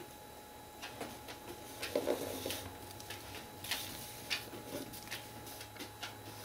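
Black pencil sketching on painted paper: faint, irregular scratching strokes and light taps, a little louder about two seconds in.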